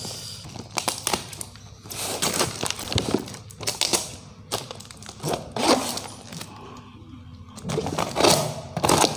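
Scissors cutting and scraping through packing tape on a cardboard box, with irregular crackles, clicks and knocks from the cardboard, busiest near the end.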